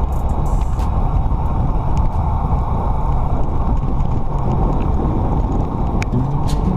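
Steady wind buffeting on a bicycle-mounted camera's microphone, with the rumble of the bike's tyres on wet tarmac, while riding at speed on an open mountain road.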